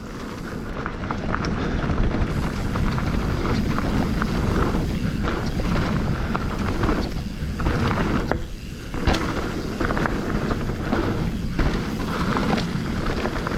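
Mountain bike riding fast down a dirt singletrack trail: steady rolling noise from the tyres, with frequent short clicks and knocks as the bike goes over roots and rocks.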